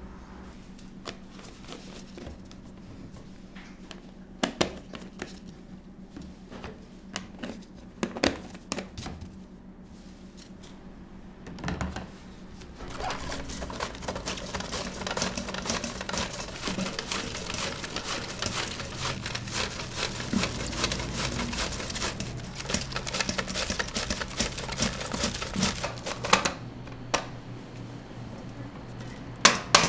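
Toast-making kitchen work: scattered clicks and knocks over a steady low hum, then a dense crackling from about 13 seconds in to about 26 seconds, and a few sharp knocks near the end.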